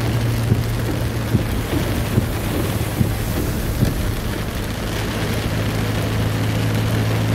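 Heavy rain pelting a moving car, heard from inside the cabin, over a steady low hum of engine and road. A few soft knocks come in the first four seconds.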